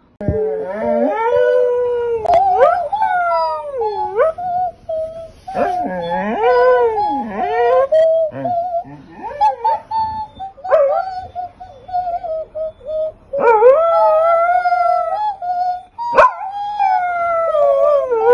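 A Shetland sheepdog howling along as if singing: long, wavering notes that slide up and down in pitch, in several phrases broken by short pauses.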